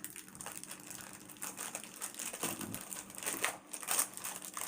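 Packaging crinkling and rustling as it is handled and pulled apart, in irregular bursts of crackle.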